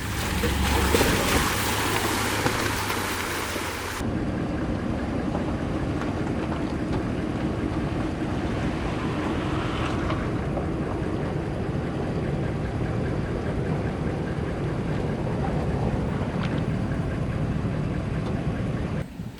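Truck driving through deep puddles on a muddy dirt road: engine running under a steady rush of water splashing and sloshing against the truck, with wind noise. The sound changes abruptly about four seconds in.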